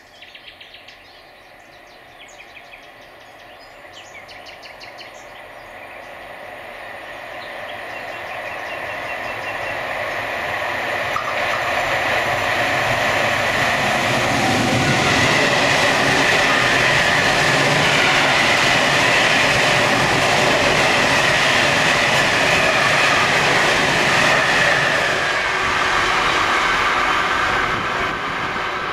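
ÖBB Taurus class 1116 electric locomotive hauling a freight train of hopper wagons, approaching and passing. The rumble and wheel noise build for about twelve seconds, stay loud while the wagons roll past, then begin to fade near the end.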